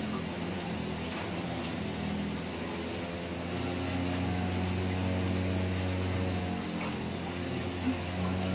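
A steady low mechanical drone with overtones, like a running engine, shifting slightly in pitch a couple of times.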